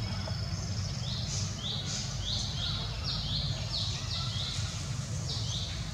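A bird calling in a quick series of short, falling chirps, about ten of them, over a steady low rumble of outdoor background noise.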